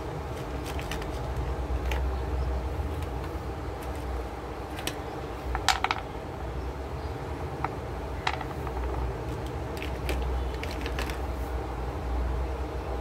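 Scattered light clicks and taps as crayons are picked up, knocked together and set down on a wooden desk, the sharpest cluster about six seconds in, over a steady low background rumble.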